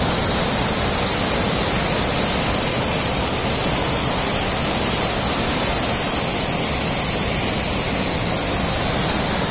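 Waterfall, a loud steady rush of falling water.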